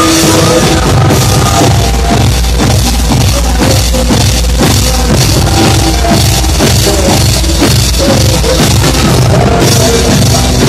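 Live rock band playing loud, with drums driving a steady heavy beat.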